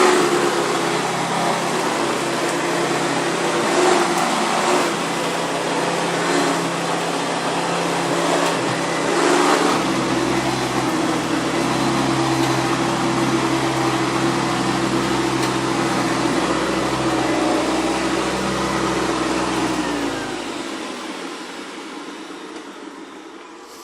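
Hoover Convertible upright vacuum cleaner running with a steady motor hum and rush of air, with a few clicks in the first ten seconds. About twenty seconds in it is switched off and the motor winds down, its hum falling in pitch and fading.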